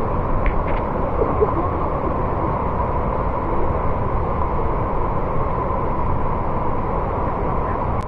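Waterfall in full monsoon flow: a steady, loud rush of falling water.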